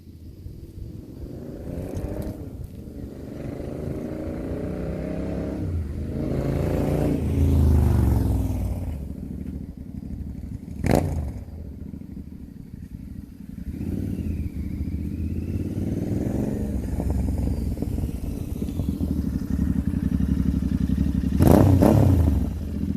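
Royal Enfield Continental GT 650's parallel-twin engine running through EMGO cafe-style aftermarket silencers, its revs rising and dropping back several times. There is a sharp crack about eleven seconds in and a louder burst near the end.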